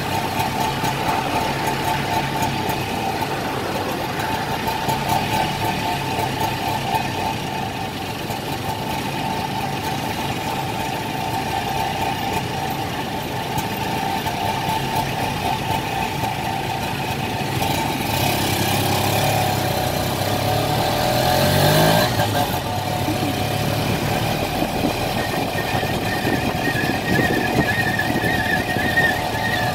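Small motorcycle engine of a tuk-tuk running steadily in slow traffic. About eighteen seconds in it revs up, rising in pitch for a few seconds, then drops back and carries on steadily.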